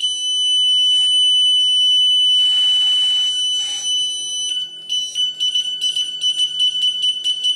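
Buzzer wired to a hall effect proximity sensor: a steady high-pitched tone, which breaks about five seconds in into rapid, even beeps several times a second as the spindle turns and the sensor switches once per revolution for the index pulse.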